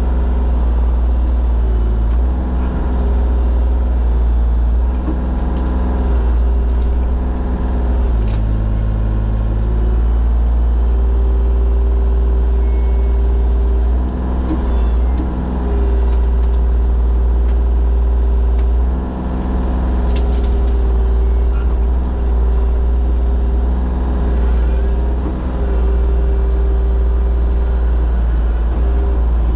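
Forestry mulcher running hard with a heavy, steady drone, and a whine that comes and goes and shifts in pitch. The drone dips briefly a few times before picking back up.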